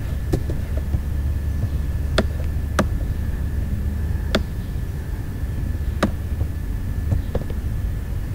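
A handful of sharp, isolated computer-mouse clicks, spaced a second or two apart, over a steady low hum with a faint high steady whine.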